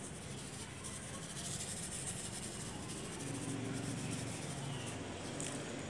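Quiet outdoor background: a steady hiss with a faint low hum, and no distinct events.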